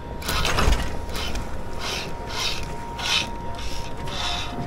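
Fishing line paying out from a free-spooled reel under the angler's thumb, sending a descended gag grouper back down: a run of short rasping strokes, about two a second.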